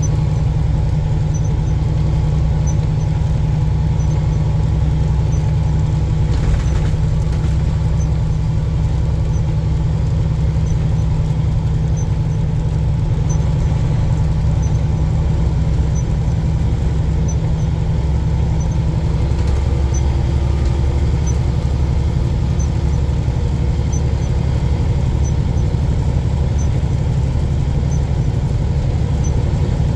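Tractor-trailer's diesel engine and road noise, a steady low drone heard from the truck, with a faint high tick repeating about every two-thirds of a second.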